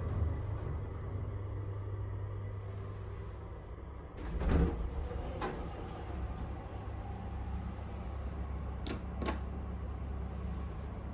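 Mitsubishi Elepet passenger elevator running with a steady low rumble, a loud clunk about four and a half seconds in, a lighter knock a second later, and two sharp clicks near the end: the kind of strange noise the elevator makes at speed.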